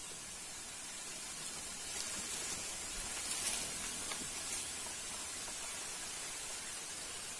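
Steady hiss of outdoor ambience, with a few faint rustles and ticks about two to four and a half seconds in.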